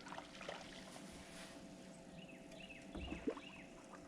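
Faint water splashing and small knocks from a hooked bass being fought at the side of a fishing boat, with a low steady hum under it. A louder knock comes about three seconds in, just after a quick run of about five short high chirps.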